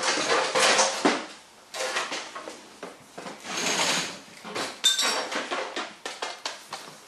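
Hard objects clattering and rustling as someone rummages for a radio controller, with a short, ringing metallic clink about five seconds in.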